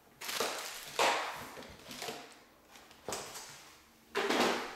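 Packaging rustling and scraping as a keyboard is pulled out of its box, in about five separate swells of noise.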